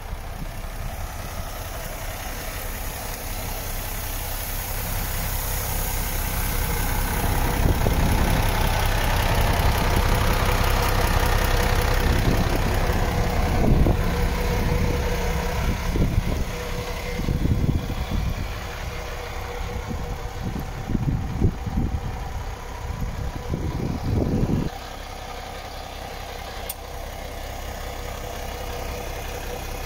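Diesel engine of a MAN TGX 26.460 truck (12.4-litre straight-six) idling steadily. The hum grows louder over the first several seconds and is broken by uneven low thuds in the middle.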